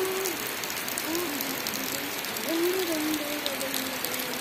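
A faint person's voice in a few drawn-out, gliding tones over a steady hiss of outdoor background noise.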